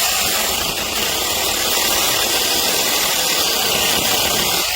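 Handheld electric mini chainsaw cutting through a branch about 2.5 to 3 inches thick: the motor and chain start suddenly, run steadily through the cut, and ease off near the end as the cut finishes.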